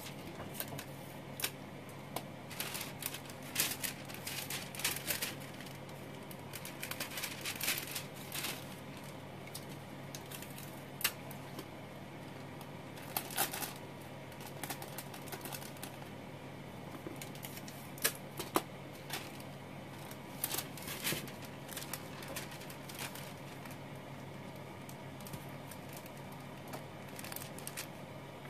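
Wax paper crinkling and crackling in irregular bursts of sharp clicks as it is handled and taped over an LED light strip, over a steady low hum.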